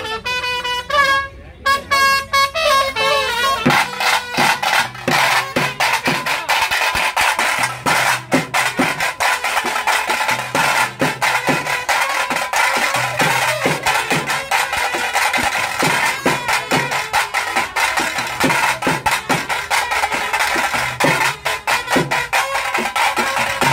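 Fast, driving drumming with sticks, the taase drum ensemble that accompanies a Tulu pili vesha tiger dance. A stepping melodic line sounds over the drums in the first few seconds, with a steady held tone underneath.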